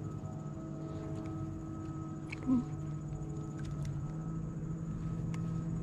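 Steady electric hum of a bass boat's trolling motor, a low drone with a faint high whine above it. A brief short sound stands out about halfway through.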